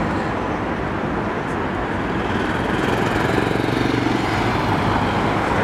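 City street traffic: cars and a motorcycle passing on the road, a steady rumble of engines and tyres. It swells as a vehicle passes close about three to four seconds in.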